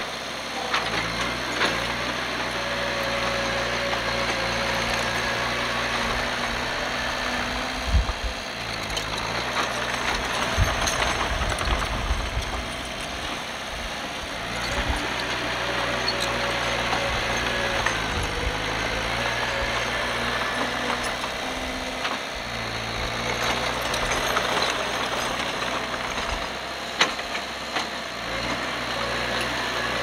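Bulldozer's diesel engine working, its note dipping and rising every few seconds as the load changes, with a few sharp knocks, the loudest about eight seconds in.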